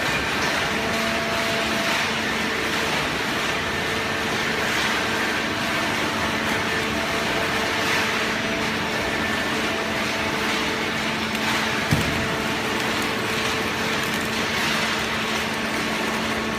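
Horizontal hydraulic carton baler running: a steady machine drone with a constant hum, and one sharp knock about twelve seconds in.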